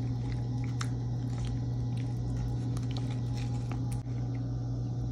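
A steady low hum, with faint scattered clicks and soft wet squishes as a spoon piles shrimp cocktail onto a hand-held tostada. The hum drops out for a moment about four seconds in.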